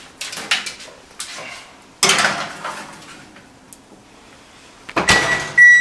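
A foil-lined baking pan clattering and scraping onto a wire oven rack, then the oven door shutting about five seconds in. Near the end the electric oven's control panel gives a short, steady, high beep.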